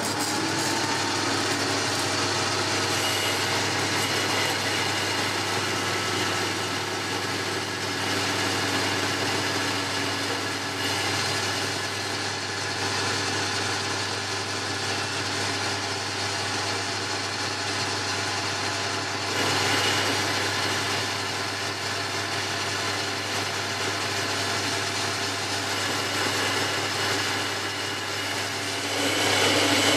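Boxford lathe running steadily while a carbide-insert tool takes a turning cut along a mild steel bar: a constant motor and gear hum under the hiss of the cut, growing a little louder near the end.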